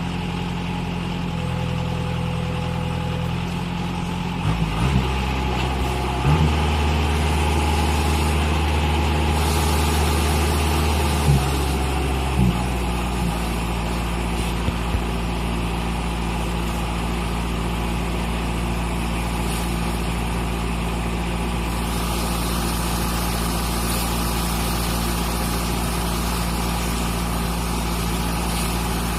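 Daedong DSC-62G combine harvester's diesel engine running steadily, its note shifting several times in the first half, with a few short knocks.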